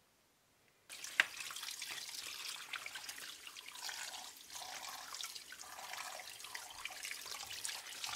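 Kitchen tap water running and splashing onto chunks of bonito in a plastic colander as a hand turns them in the stream. It starts about a second in, with a sharp knock just after it begins.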